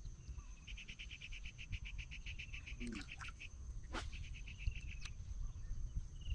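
An animal calling: a short falling whistle, then a fast trill of about ten notes a second lasting nearly three seconds, and a second, shorter trill about a second later. A steady high whine runs underneath.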